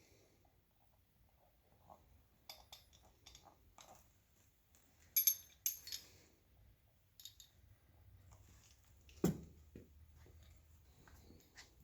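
Light metallic clinks and taps as steel engine parts and tools are handled during small-block bottom-end assembly, with one duller knock about nine seconds in.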